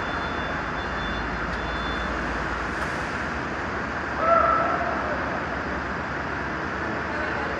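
Steady vehicle noise, an even mechanical hum, with a brief pitched two-tone sound about four seconds in.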